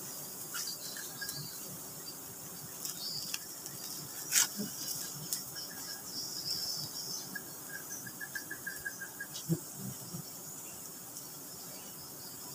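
Steady, high insect drone, with light rustles and knocks from leaves being handled; a sharp snap about four seconds in and a short rapid trill a little past the middle.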